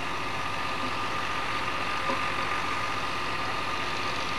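A steady, unchanging mechanical hum, like an idling engine, with a faint constant tone running through it.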